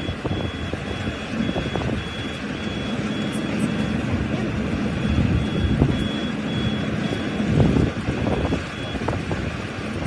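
Rice combine harvester running at work, a steady low engine rumble. Over it an electronic warning beeper sounds about twice a second, stopping about nine seconds in.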